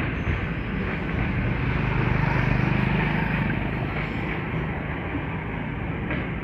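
Small motorbike engine passing close, its hum swelling about two seconds in and fading, over a steady rumble of street traffic.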